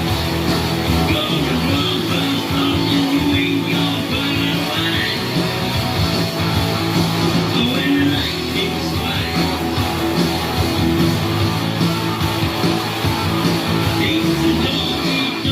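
Rock music with guitar, playing steadily throughout.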